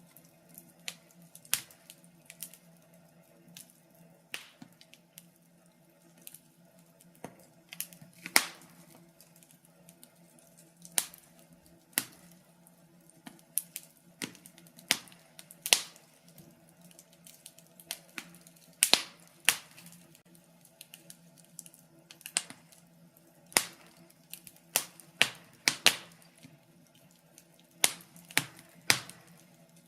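Wood fire crackling in a fireplace: irregular sharp pops and snaps, one or two a second and uneven in loudness, over a faint steady hum.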